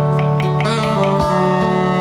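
A live band playing Georgian music: sustained melody notes over a steady held bass, with plucked string notes.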